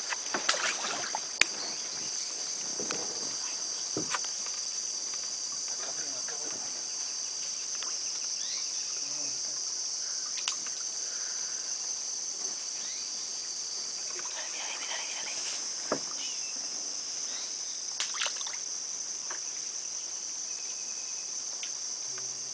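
Steady, high-pitched chorus of insects buzzing without a break, with scattered sharp clicks and knocks, several in the first second and a half and a few single ones later.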